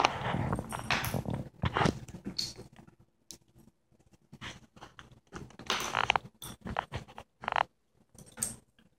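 An English springer spaniel puppy and a cockapoo play-fighting on a hardwood floor: scuffling, mouthing and claws scrabbling on the wood in irregular bursts, busiest in the first two seconds and again around six seconds in.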